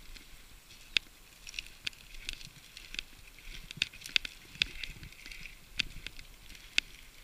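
Dry reed stalks and twigs crackling and snapping under a mountain bike's tyres, a string of sharp, irregular clicks, some two or three a second.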